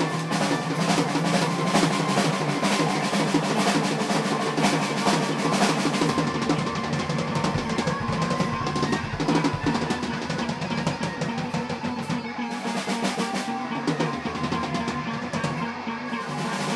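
A music track with a drum kit playing busily over held pitched notes. The drumming thins out about six seconds in.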